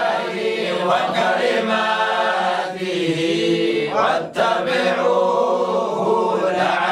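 Several men's voices chanting a Quranic verse together, unaccompanied, in long drawn-out notes, with a brief break for breath about four seconds in.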